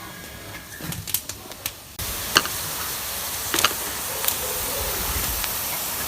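A few light clicks, then a steady hiss of steam from a food steamer starts abruptly about two seconds in, with occasional sharp clinks over it.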